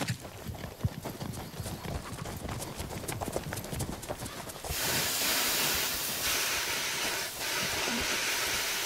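Small plane's hard, too-fast landing on a landing strip: a fast irregular rattling and knocking of the airframe and wheels, then from about five seconds in a steady rushing hiss.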